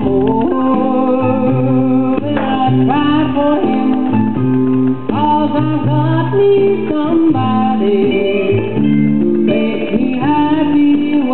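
A pop song with a female voice singing over guitar accompaniment.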